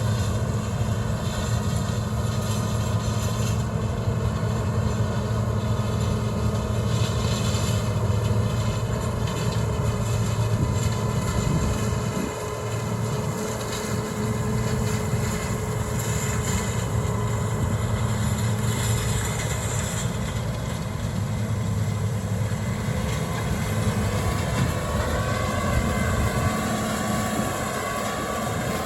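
Combine harvester running steadily while harvesting soybeans: a constant low engine drone with a few steady tones from the machinery above it.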